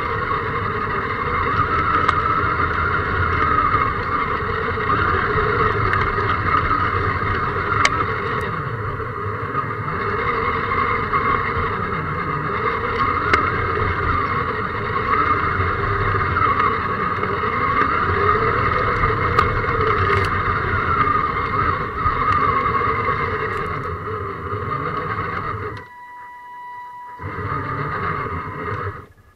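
Electric motor and gearbox of a scale RC crawler, heard from a camera mounted on the truck, whining and rising and falling in pitch with the throttle as it crawls over rough ground, with scattered knocks and scrapes. Near the end the motor drops away sharply to a faint steady whine, then picks up again.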